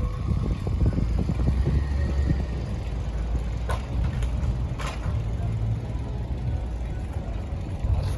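Low, uneven rumble of wind buffeting the microphone of a camera riding along on a bicycle, with two short ticks about a second apart near the middle.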